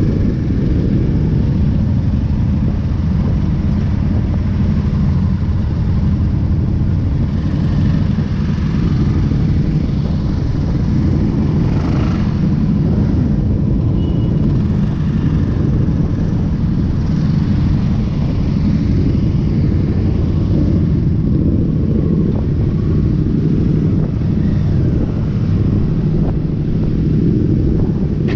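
Motorcycle engines running steadily at cruising speed, heard from the seat of a touring motorcycle riding in a large group of bikes, with a deep continuous rumble.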